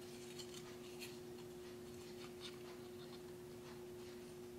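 Faint light ticks and rubbing of a plastic model-kit chassis pan being handled and turned over in the hands, over a steady low hum.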